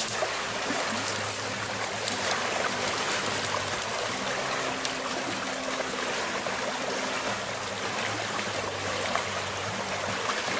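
Steady rushing of a flowing river, with a faint low hum underneath and a few light clicks.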